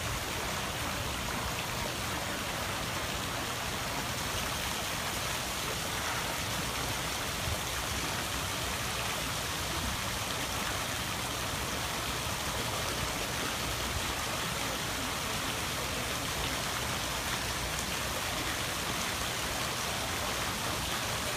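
Steady rushing of water from a stream running down over rocks.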